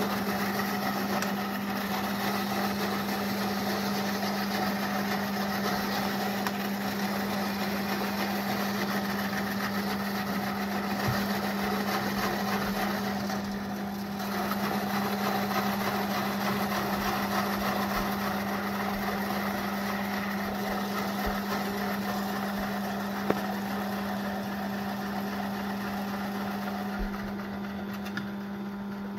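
Small benchtop metal lathe running at a steady speed with a constant hum, spinning a modified rotary grater drum in its chuck while vegetables are pressed in and grated.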